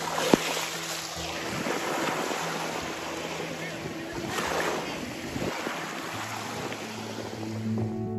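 Sea water washing and wind buffeting the microphone, with a steady low hum underneath and a sharp click about a third of a second in. Music fades in near the end.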